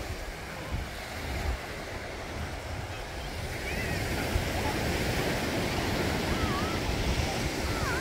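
Ocean surf washing onto a sandy beach, a steady wash that grows louder about halfway through, with gusty wind rumbling on the microphone.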